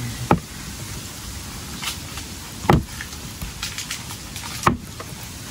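Cleaver slicing down through a block of tofu and knocking on a wooden chopping board: three distinct thuds about two seconds apart, with a few lighter taps between them, over a steady faint hiss.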